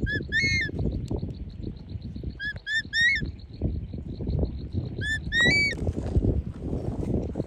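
Hawk-eagle calling: three bursts of two or three short, high whistled notes, each note rising at the end, spaced a couple of seconds apart. A steady fast high pulsing and a low rumbling noise run underneath.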